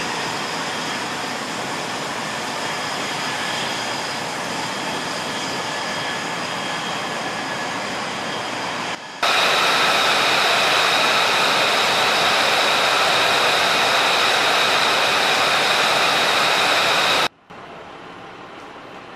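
F-35 Lightning II jet engine (a single F135 turbofan) whining steadily as the jet taxis, high whistling tones over a rushing noise. About nine seconds in it cuts abruptly to a louder, steady jet whine, which cuts off about eight seconds later to a much quieter steady noise.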